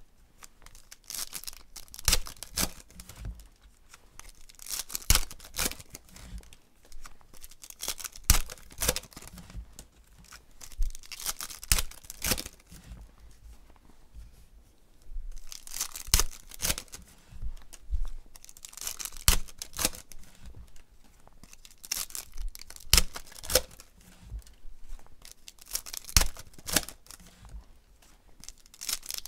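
Foil wrappers of 2016 Panini Contenders Football card packs being torn open one after another and crinkled. The tearing comes in bursts about every three to four seconds.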